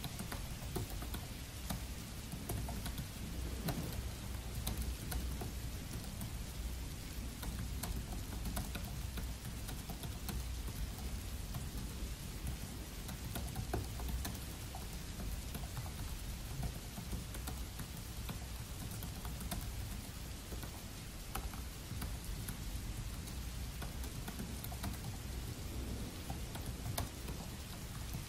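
Steady rain, with laptop keyboard typing: quick, irregular key clicks scattered throughout.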